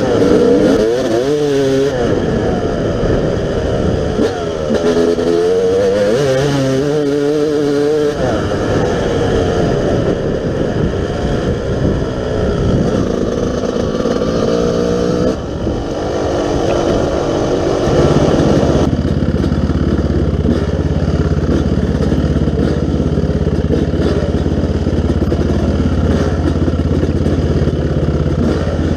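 Yamaha YZ250 dirt bike engine revving up and down repeatedly for the first several seconds, then running more evenly. From a little past halfway it settles into a steady low drone.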